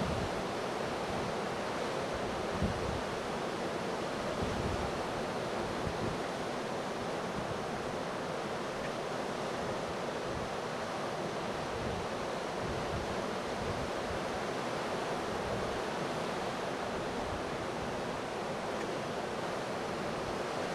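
Ocean surf breaking steadily, the first swell building ahead of a hurricane, with wind blowing over the microphone and a few low gusty thumps in the first few seconds.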